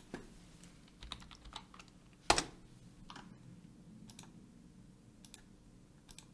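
Light, scattered clicks of a computer keyboard and mouse, with one sharper click a little over two seconds in.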